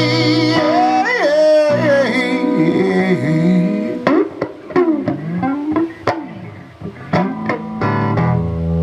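Blues band playing an instrumental passage between verses: a guitar lead with notes that bend up and down over a bass line. A long wavering note is held at the start.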